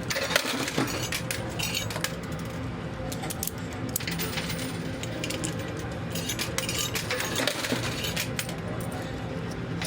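Quarters clinking and clattering in a coin pusher machine, many short metallic clicks coming irregularly over the machine's steady low hum.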